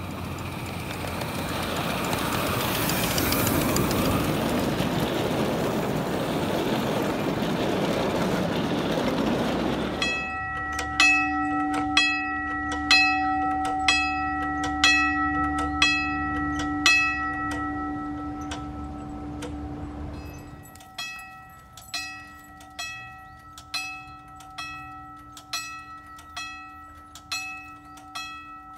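A miniature live-steam locomotive running past with a loud, steady rush of steam and exhaust. Then a railroad wig-wag crossing signal's bell clangs about once a second, struck by its motor-driven mechanism, whose hum stops about two-thirds of the way in while the bell keeps ringing.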